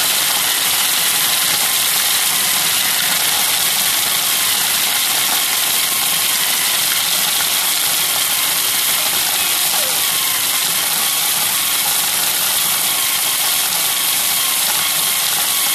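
Cuisinart food processor motor running steadily, its blade grinding toasted bread ends into fine breadcrumbs.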